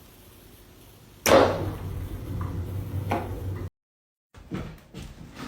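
A sudden loud bang just over a second in that rings on briefly, then a smaller knock about two seconds later; the sound then cuts out abruptly.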